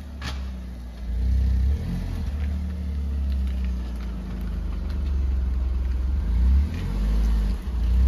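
Maruti Suzuki S-Presso's small three-cylinder petrol engine running as the car is manoeuvred at low speed, revving up twice, about a second and a half in and again near the end.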